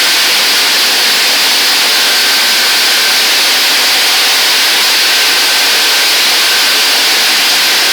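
Touchless car washing machine running: a loud, steady hiss of high-pressure jets, with a faint thin tone that comes and goes.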